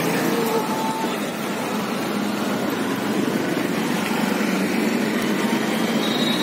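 Steady rumble of road traffic passing by. A thin high tone comes in near the end.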